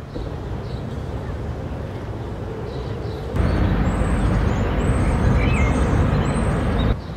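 Steady outdoor background noise with a few faint short high chirps. It steps up louder about three and a half seconds in and drops back just before the end.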